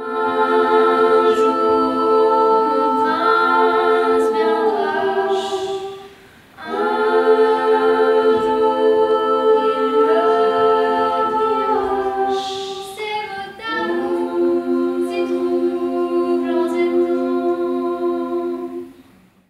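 A small group of young singers singing a cappella in harmony, holding long chords in phrases, with a short break for breath about six seconds in.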